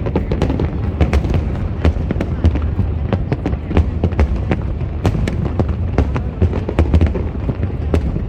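Aerial fireworks display going off in rapid succession: a dense run of sharp bangs and crackles, several a second, over a steady low rumble.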